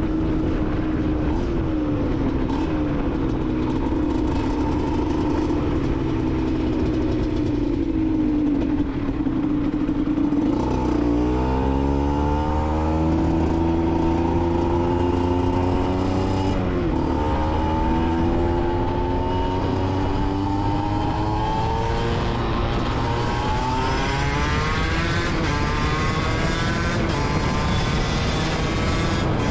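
Aprilia SX 125's single-cylinder two-stroke engine, through an Arrow exhaust, under way: it holds steady revs for about the first third, then the pitch drops and climbs again twice, like gear changes, and rises strongly as the bike accelerates near the end.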